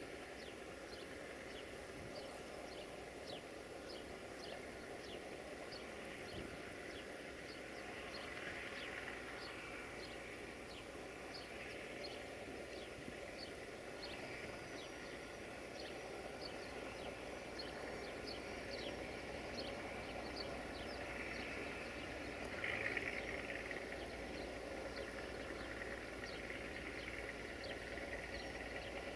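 Diesel engine of a Marub UAM215 track machine running at low speed, a steady hum, with a high chirp repeating about twice a second through most of it. A brief louder rush comes about three-quarters of the way through.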